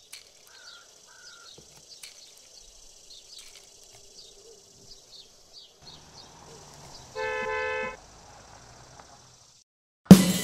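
A vehicle horn sounds once, a steady tone lasting under a second, over faint high chirping. Just before the end, loud band music comes in on a drum kit.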